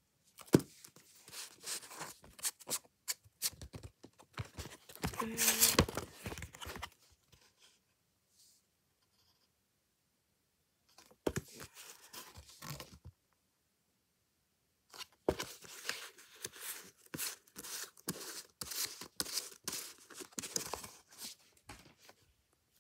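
Paper sleeve of a 7-inch vinyl EP rustling and scraping as it and the record are handled, in three bouts of crinkly, clicky noise with short silences between.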